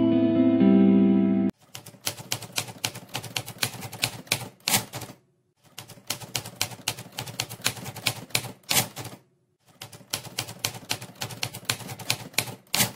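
Manual typewriter keys clacking in quick runs of strikes. There are three runs of about three seconds each, with short pauses between them. Guitar music plays for the first second and a half, then stops abruptly.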